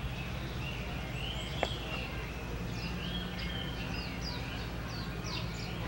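Small birds chirping in short, high, quickly falling notes, with a longer wavering call in the first half, over a steady low background hum. A single sharp click comes about a second and a half in.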